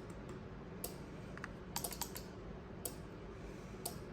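A scattering of sharp, light clicks, about one a second, with a quick cluster of several clicks near the middle, over a low steady background.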